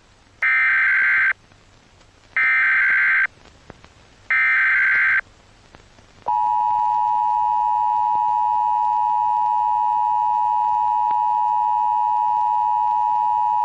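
Emergency Alert System tones: three short buzzy bursts of SAME header data, each just under a second and about two seconds apart, then, about six seconds in, the steady two-tone EAS attention signal (853 and 960 Hz) that holds on.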